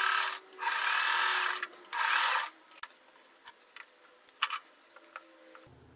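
Sewing machine stitching in three short runs as pairs of quilt squares are fed through one after another, the last run stopping about two and a half seconds in; then a few faint clicks.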